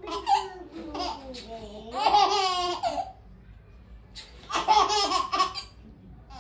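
A small child laughing in two loud bursts, one about two seconds in and another about four and a half seconds in.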